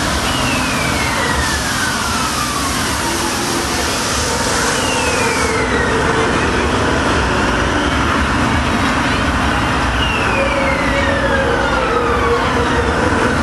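Spinning children's airplane carousel: a steady, loud rumble of the ride in motion, with a falling whistle-like tone sliding down in pitch three times.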